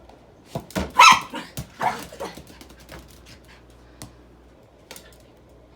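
Small dog barking twice, about a second apart, with light clicks and taps around the barks.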